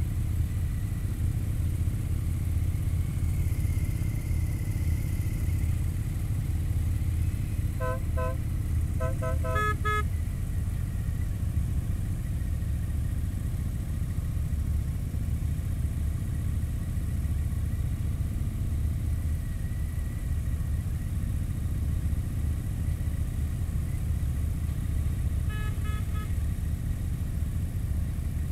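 Touring motorcycle engine running steadily at cruising speed with wind noise, heard from the rider's seat. A series of short horn toots comes about eight to ten seconds in, and one more brief toot sounds near the end.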